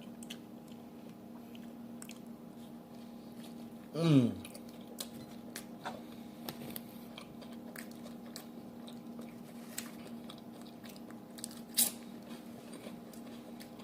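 A person chewing a mouthful of cheeseburger, with many small wet mouth clicks and smacks and a short closed-mouth "mmm" about four seconds in. A steady low hum sits underneath.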